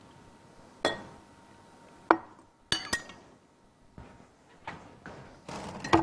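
Several separate sharp clinks and knocks of kitchen glassware and utensils being handled and set down on a worktop. A pair about three seconds in ring briefly.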